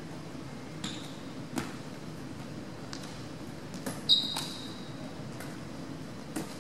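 Volleyball drill on a hardwood gym court: a few scattered slaps and thuds of the ball and feet, the loudest about four seconds in with a short high sneaker squeak, over a steady low hum of the hall.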